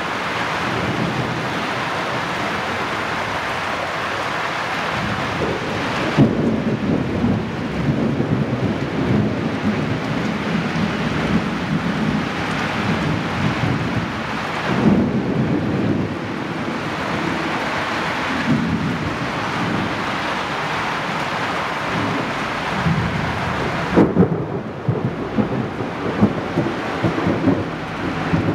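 Thunderstorm: steady heavy rain with thunder, three sudden claps that roll into rumbling about six, fifteen and twenty-four seconds in.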